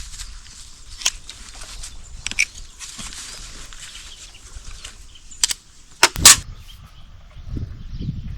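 Quiet outdoor rural background with a few sharp knocks, the loudest a close pair about six seconds in.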